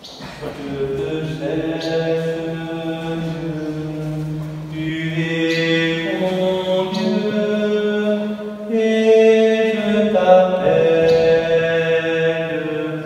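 A slow sacred chant sung during communion, with long held notes that change pitch every second or two, starting suddenly at the very beginning.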